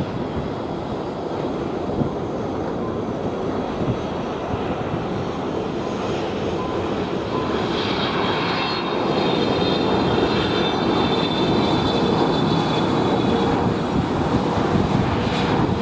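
Boeing 777-300ER's twin GE90 turbofans on final approach: a steady jet rumble that grows louder as the airliner passes close. A high whine comes in about eight seconds in.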